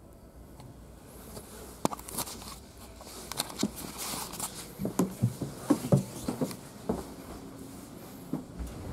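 Irregular footsteps and handling knocks and clicks, getting busier about halfway through, over a low steady hum.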